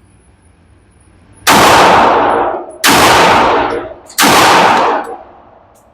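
Three 9mm Glock pistol shots, fired slowly about a second and a half apart, each trailing off in a long echo.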